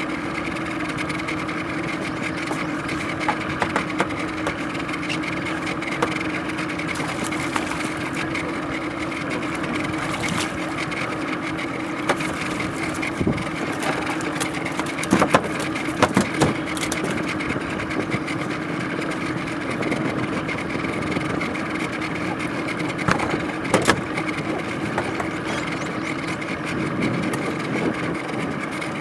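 Small outboard motor idling steadily, with a few sharp knocks and bumps from handling in the boat.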